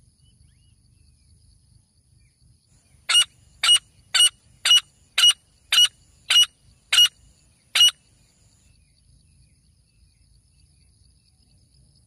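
Grey francolin calling: a series of nine sharp, high-pitched notes at about two a second, starting about three seconds in.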